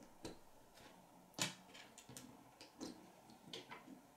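Plastic K'nex pieces clicking and tapping as they are pushed together and handled on a wooden table: scattered faint clicks, the sharpest about a second and a half in.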